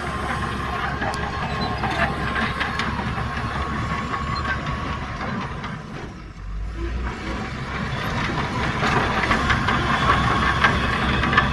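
Heavy diesel earthmoving machinery running, a low engine hum under hissing noise and scattered clanks. The sound drops off briefly a little past halfway, then builds back up louder.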